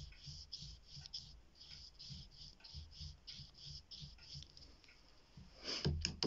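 Watercolour paintbrush stroked back and forth across drawing paper in short quick strokes, about three a second, stopping about five seconds in; a couple of louder knocks follow near the end.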